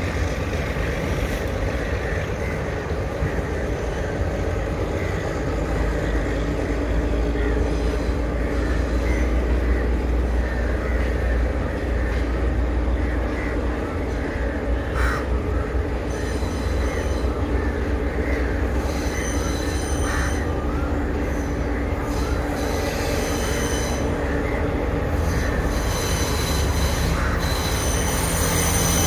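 Diesel multiple-unit passenger train approaching on curved track: a low, steady diesel engine hum that slowly grows louder. High wheel squeal from the curve sets in about halfway through and comes and goes.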